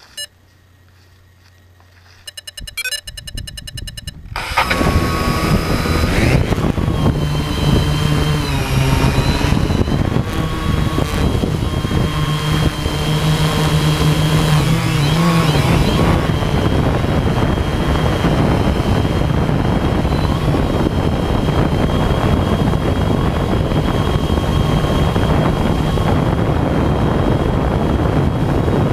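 Quadcopter camera drone's motors spinning up in steps about two and a half seconds in, then the propellers running loud and steady as it lifts off and climbs. The buzzing hum wavers in pitch for a while as the drone manoeuvres, then holds steady.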